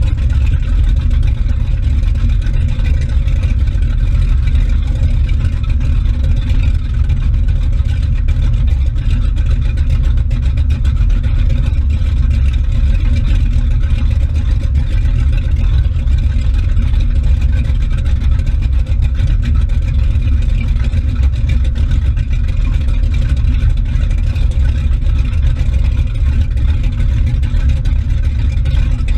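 Motorboat engine running smoothly and steadily at speed, with the wake churning and splashing just behind the boat.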